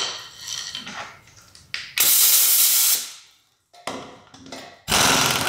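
Pneumatic impact wrench zipping the lug nuts off a truck's front wheel in two bursts of about a second each, with the hiss of air, the first about two seconds in and the second near the end. Light clinks of the tool being handled come before.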